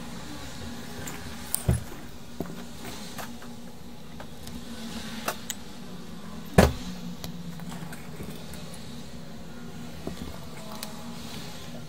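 Small clicks and knocks from handling a circuit board and a thin jumper wire, over a steady low hum. There are two sharper knocks, the louder one about six and a half seconds in.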